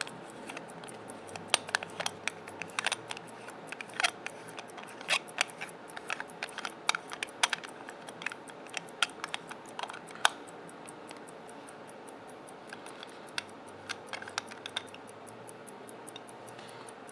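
Irregular small metal clicks and taps from a gold-filled pocket watch and its screw-off case back being twisted and handled, busiest for the first ten seconds and again briefly later. A faint, fast, even ticking runs underneath.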